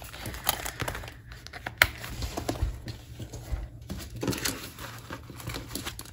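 Paper banknotes and cash envelopes being handled: rustling and crinkling, with scattered soft clicks and one sharper click a little under two seconds in.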